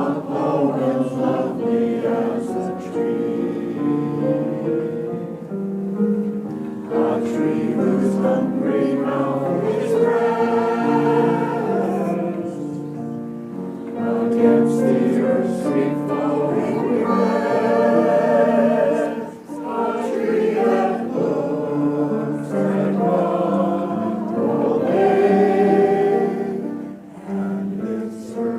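A chorus singing a song in several-part harmony, in held phrases with brief breaths between them.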